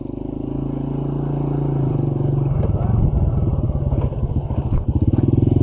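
Small underbone motorcycle engine running as it approaches, growing steadily louder, its note turning rougher and more pulsing about halfway through as it slows.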